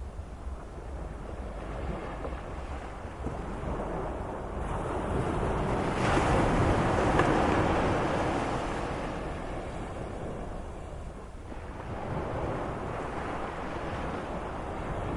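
Sea waves washing in, a continuous surf noise with a low rumble, one larger wave building and breaking about six seconds in and washing out over the next few seconds.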